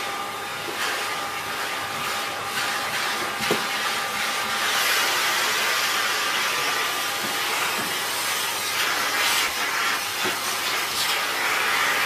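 Miele S8330 2200 W cylinder vacuum cleaner running and sucking air through its hose and handheld nozzle: a steady rushing hiss with two faint whistling tones. The hiss grows louder about five seconds in, and there is a light knock a little before that.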